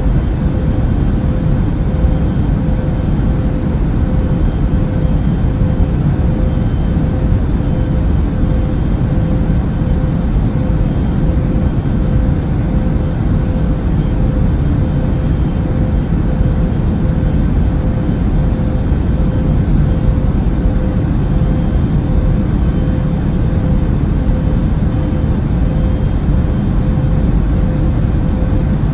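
Airbus A380 cabin noise in cruise flight: a constant low rumble with a steady hum above it, unchanging throughout.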